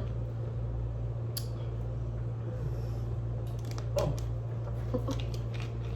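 Steady low electrical hum of the room, with a few faint clicks and a short, soft vocal sound about four seconds in.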